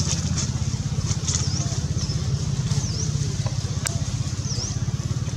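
A small engine idling steadily with a fast low throb. A short high chirp that dips and rises repeats about every second and a half, and there is one sharp click near the end.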